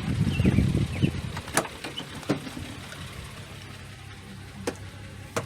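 Toyota Sienna's 3.3 liter V6 idling steadily and smoothly, its misfire cured by a new ignition connector, with a few sharp clicks over the steady hum.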